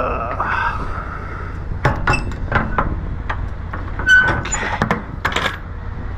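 Metal hardware clinking and clanking: several sharp knocks spread over a few seconds, some with a short metallic ring, over a low steady rumble.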